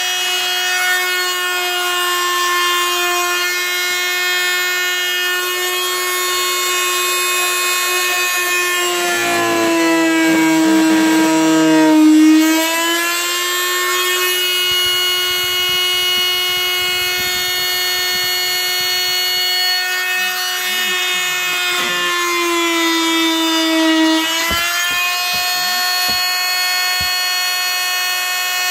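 High-speed electric power tool cutting through the camper's FRP roof panel, a steady high-pitched motor whine whose pitch sags twice as the blade bites under load, beginning to wind down at the very end.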